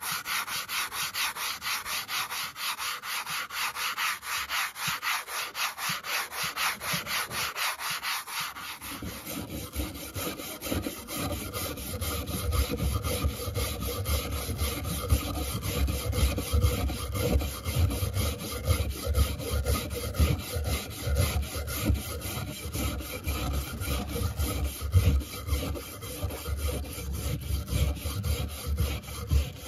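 A sanding sponge rubbed back and forth over a rusty steel grass-shear blade in quick, even strokes. About nine seconds in, a hand wire brush takes over, scrubbing the rust off the blade on a wooden board with a denser, heavier scratching.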